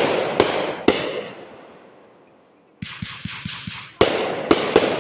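Fireworks shells bursting: loud bangs with crackling tails, a brief lull, then a quick run of smaller pops followed by more loud bangs near the end.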